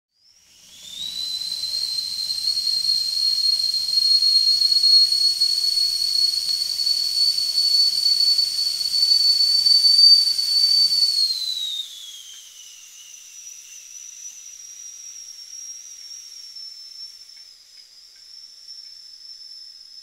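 Kettle whistling at the boil: a shrill, steady whistle over a hiss of steam. About eleven seconds in, the pitch sags and the whistle drops much quieter, leaving a thinner, higher whistle that lingers.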